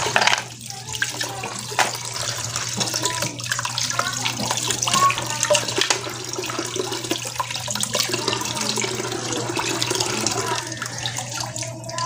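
Water running and splashing, with many small clicks and knocks mixed in.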